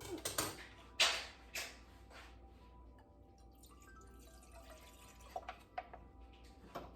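Kitchenware clinking and knocking: a quick run of sharp clicks in the first two seconds, then three more near the end.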